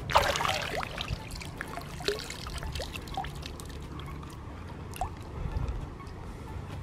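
A hand plunges into shallow river water with a splash just after the start and lifts out a waterlogged toy car; water then trickles and drips off it in scattered small plinks over the steady flow of the stream.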